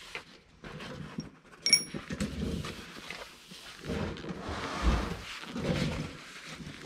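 Workshop handling noises: a light metallic clink about two seconds in, then paper towels rustling as hands are wiped, with a soft thump near five seconds.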